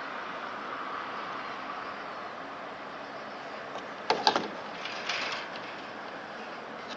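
A quick cluster of sharp knocks about four seconds in, followed a second later by a short scraping rattle, over a steady background hiss.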